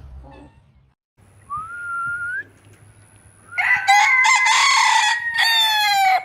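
Ayam Ketawa rooster crowing: a short rising note about a second and a half in, then one long loud crow that breaks near the end into a quick stuttering run.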